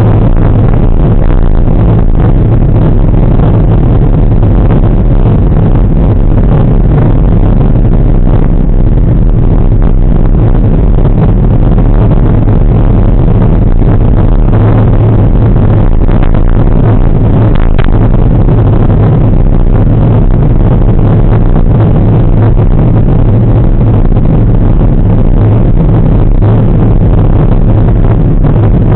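Wind buffeting a bicycle-mounted action camera's microphone while riding, a loud, steady low rush with no break.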